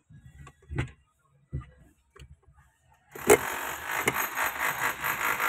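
A few light clicks and knocks, then about three seconds in a sharp clunk as the starter engages and cranks the Mahindra Bolero Power Plus's three-cylinder diesel with a steady, rhythmic churn. This is a start attempt on an engine that would not start because its fuel pump was not switching on (code P0627).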